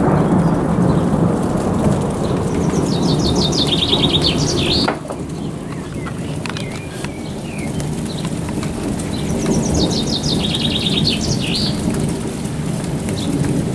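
Steady rain with a low rumble, louder for the first five seconds and then dropping suddenly. A songbird twice sings a short phrase of fast repeated notes ending in a flourish.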